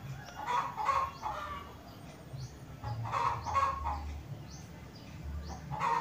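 Chickens clucking in three short bouts, near the start, around three seconds in, and at the end.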